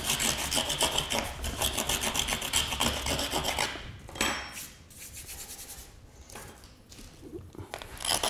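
A pointed metal tool scraping hard back and forth across a carbon-fibre sheet in rapid rasping strokes, gouging deep scratches into it. The scraping stops about four seconds in, with one short scrape after it, and starts again near the end.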